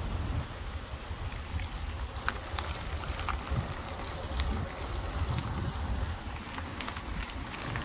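Wind buffeting the microphone on a moving 1946 Shelby bicycle, with tyre hiss on the pavement and scattered light ticks and rattles from the bike as it rolls over the cracks.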